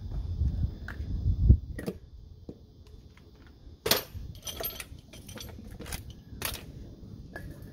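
Hand tools being handled on a concrete floor: a low rumble ending in a heavy thump about a second and a half in, then scattered sharp metallic clicks and clinks.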